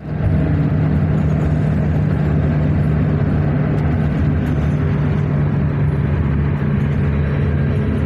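Steady engine drone and road noise inside a moving car at highway speed, with a constant low hum under a rushing roar.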